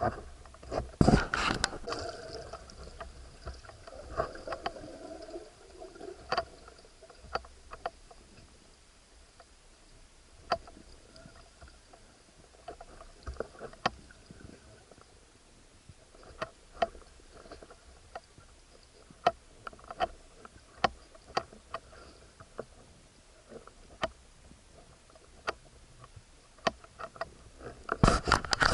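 Water sounds picked up underwater during spearfishing: irregular sharp clicks and taps over a faint steady hum, with louder rushing, sloshing noise about a second in and again near the end.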